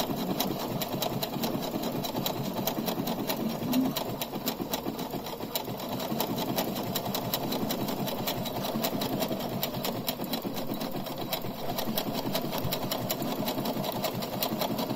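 Electric sewing machine stitching steadily, the needle clicking in a fast, even rhythm without pause.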